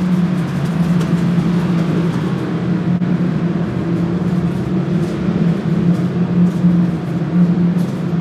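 Loud, steady low mechanical hum that does not change, with a few faint clicks.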